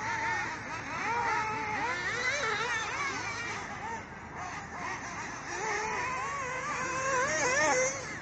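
Radio-controlled off-road buggy's motor, its high pitch rising and falling in quick swells with the throttle as the buggy is driven. It is loudest shortly before the end, then drops.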